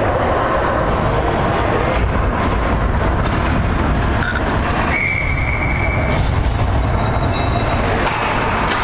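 Ice hockey rink ambience: a steady low rumble and hiss, with a short steady high tone about five seconds in.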